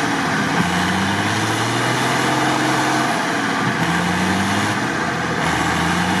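Mercedes Unimog diesel engine working under load as the truck struggles out of deep swamp mud on a winch, its pitch changing with the throttle and settling higher about three and a half seconds in.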